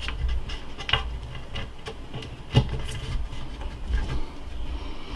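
Handling noise from fitting cabinet knobs: a few light knocks and clicks, with some rubbing, over a low steady rumble.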